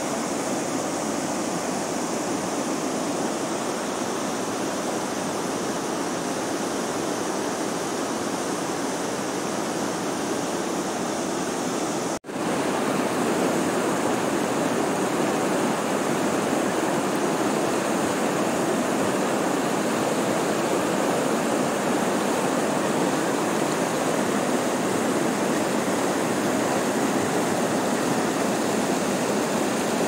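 Steady rushing of white water from a river tumbling over a low concrete weir and rocky rapids. About twelve seconds in the sound drops out for an instant, then comes back a little louder.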